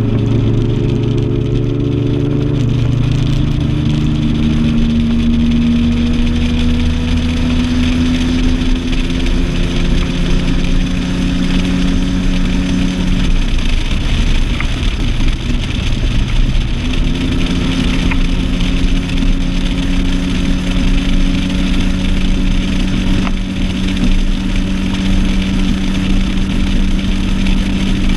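Outboard motor of a Stratos bass boat running under way over a constant rush of wind and water. Its pitch climbs in the first part, drops away for a few seconds around the middle, then comes back and holds steady.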